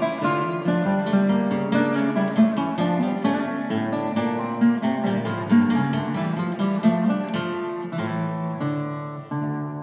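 Background music: acoustic guitar playing plucked and strummed notes, ending on a chord that rings out and fades near the end.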